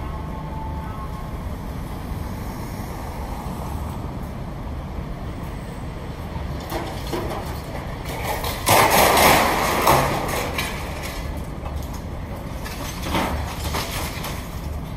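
Diesel demolition machinery running steadily, with a loud crash of rubble and debris lasting over a second about nine seconds in, and a smaller clatter about four seconds later.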